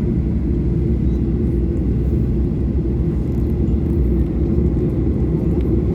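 Steady low rumble inside the cabin of a Boeing 737-800 on the ground before takeoff: its CFM56 engines running at low power, heard through the airframe.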